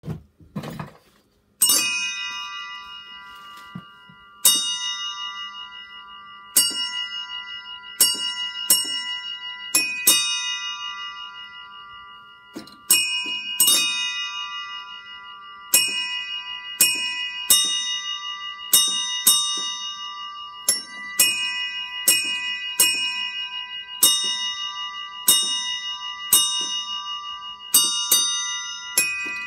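A few metal bells struck one or two at a time in a slow, uneven sequence of a few high pitches, each strike ringing on and fading under the next. A couple of soft low thumps come just before the first bell.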